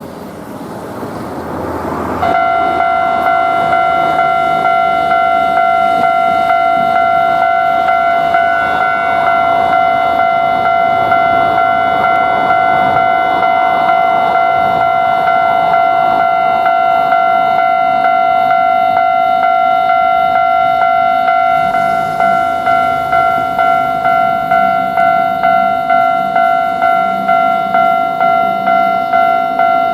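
Japanese level-crossing alarm bell on the Ichibata Electric Railway starts ringing about two seconds in and keeps up its rapid kan-kan strokes, about two a second.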